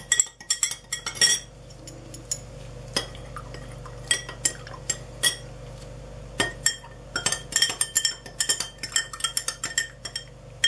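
Metal teaspoons stirring food-colouring solutions in drinking glasses, clinking against the glass in quick runs of taps with short pauses between, each tap ringing briefly. The dye is being dissolved in hot water.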